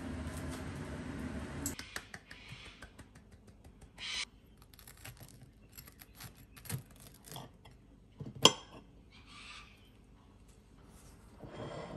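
Small kitchen-prep sounds on a ceramic plate: chopsticks and a table knife clicking and scraping as mustard is spread on bread, with one sharp clink of metal on the plate past the middle. A steady rushing noise runs at the start and cuts off abruptly after about a second and a half.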